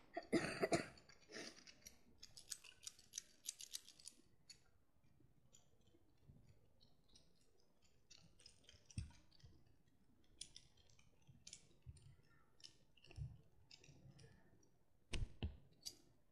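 Faint handling noise from small objects being moved close to the microphone: a quick run of clicks and rustles in the first few seconds, then scattered clicks with a few soft thumps, the loudest near the end.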